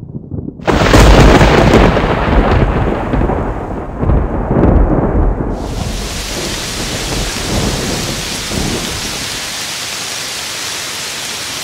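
Thunderstorm sound effect: a sudden thunderclap about a second in rumbles on for several seconds with a second swell, then steady rain sets in.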